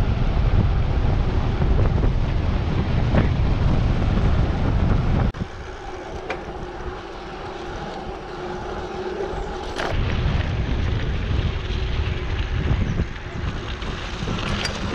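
Wind buffeting the microphone over the rumble of bicycle tyres rolling on a dirt road. The rush drops off abruptly about five seconds in, leaving a quieter stretch with a faint steady hum, and comes back about ten seconds in.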